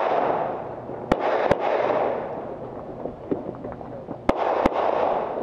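Pistol shots fired in two quick double-taps, the shots in each pair about a third of a second apart and the pairs about three seconds apart.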